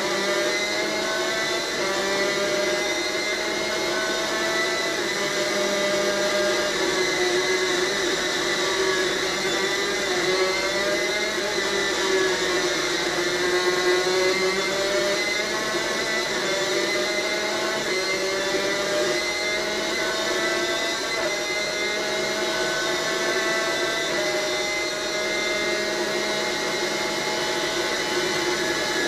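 Two-stroke superkart engine at high revs, its pitch climbing steadily and then dropping back sharply again and again as the kart accelerates and shifts up through the gears.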